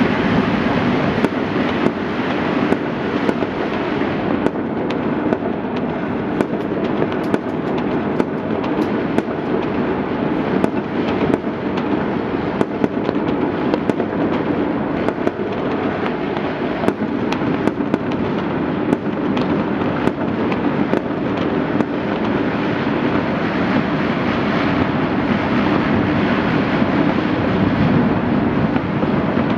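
Many firecrackers and fireworks going off at once across the city: a continuous crackle of overlapping bangs with sharp cracks all through.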